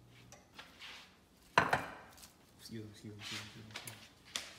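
A glass baking dish being pulled from the oven and handled, with one sharp knock about one and a half seconds in, the loudest sound, and a lighter click near the end.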